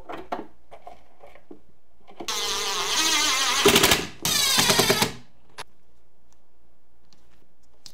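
Ryobi cordless impact driver driving a screw into a laminated particleboard bookcase panel, its rapid hammering heard in two runs: about two seconds, then a shorter burst of about a second.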